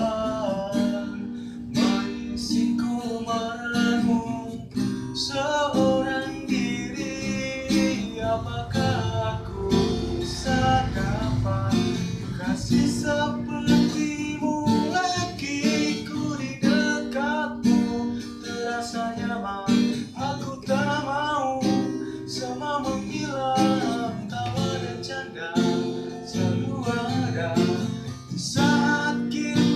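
A solo voice singing a melodic song over a strummed acoustic guitar.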